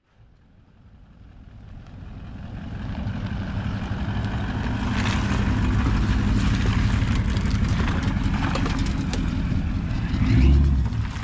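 Toyota LandCruiser 200 Series 4WD driving past on a dirt bush track. Its engine note grows louder as it approaches, with tyres crackling over the dirt and sticks. The engine surges louder near the end as it pulls away up the track.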